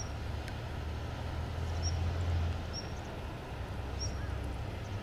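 Steady low rumble of moving river water, with faint short high chirps about once a second.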